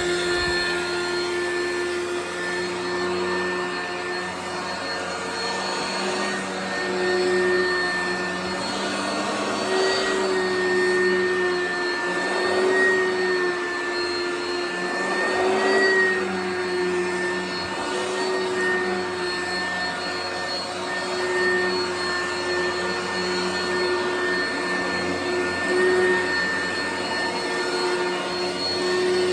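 Vacuum cleaner running steadily, its motor whine dipping and rising slightly in pitch a few times as it is pushed around.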